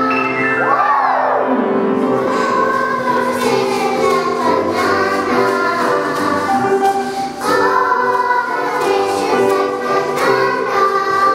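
Young girls' choir singing, with a swooping slide up and back down in pitch about a second in.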